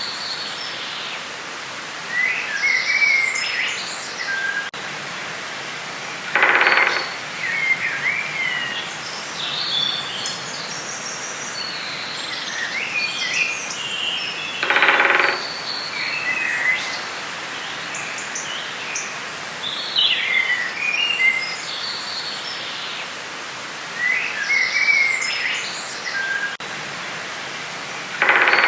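Forest ambience of several songbirds chirping and singing over a steady hiss. Three louder, lower calls of about a second each come at intervals.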